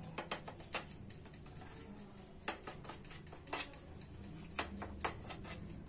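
White plastic spoon pressing and scraping a thick sesame-sweet mixture flat in a metal cake tin, with scattered soft clicks and taps as it knocks against the mixture and the tin.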